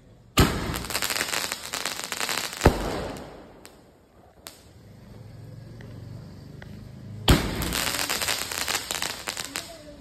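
Ajanta 12-shot aerial fireworks cake firing: two shots about seven seconds apart, each a sharp bang followed by a couple of seconds of dense crackling, with another sharp bang about two and a half seconds in.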